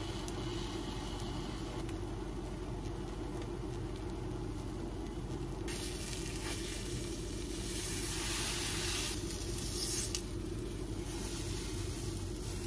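Food frying in a hot pan: a sizzle that sets in about halfway through and swells louder in waves, over a steady low hum.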